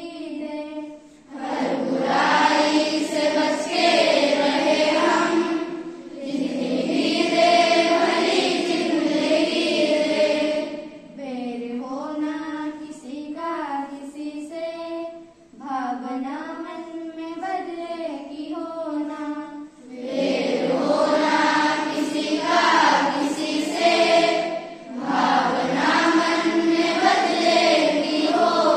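Group of schoolchildren singing a prayer together into a microphone, in long held phrases with short breaths between. The singing is fuller and louder at the start and end and thinner in the middle.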